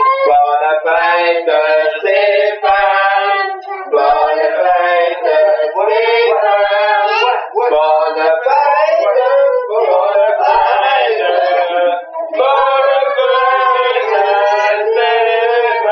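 Several voices singing together.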